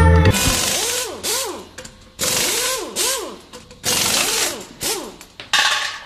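Hand saw cutting through wood in about seven back-and-forth strokes, a little under one a second. Each stroke is a hiss with a tone that rises and then falls.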